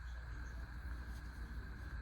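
Low steady background hum with faint hiss: room tone, with no distinct handling sound.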